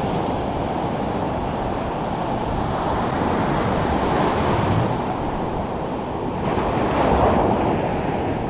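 Surf breaking on a sandy beach, with wind buffeting the microphone. The wash swells louder about seven seconds in as a wave comes in.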